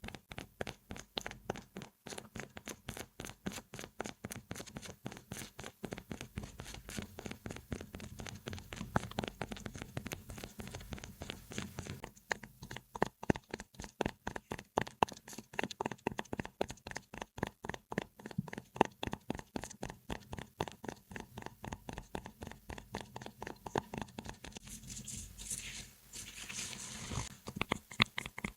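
Close-miked ASMR triggers: a fast, even run of short crisp taps or scratches on an object, about five or six a second. Near the end it briefly turns to a brighter, crinkly rustle.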